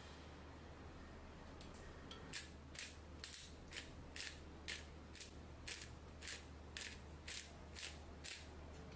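Pepper mill grinding black pepper: about a dozen short grinding twists at roughly two a second, starting a couple of seconds in.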